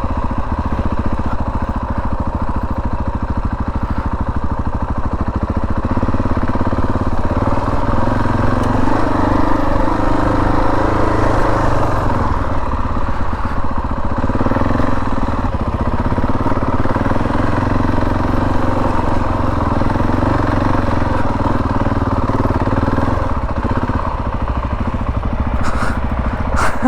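Motorcycle engine running steadily throughout, its pitch rising and falling with changing revs through the middle of the stretch.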